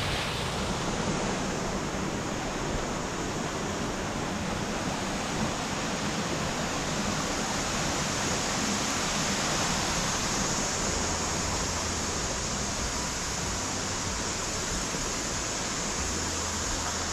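Steady rush of water from a small waterfall and a rocky mountain stream.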